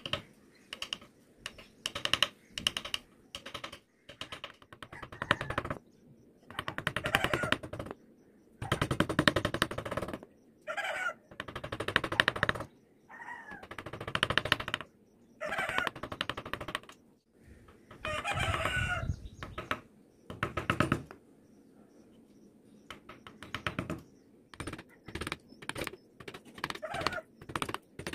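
Steel carving chisels and small gouges cutting into a wooden relief panel by hand: a run of short scraping, clicking cuts, some longer strokes among them. Several short, wavering pitched calls sound in the background.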